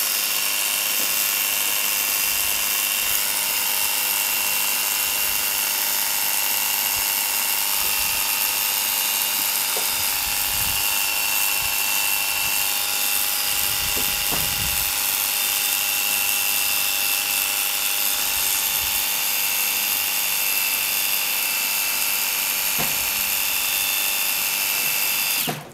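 24V cordless pressure washer running continuously: its small electric pump gives a steady whine under the hiss of the water jet spraying onto a dirty tile. It cuts off suddenly near the end.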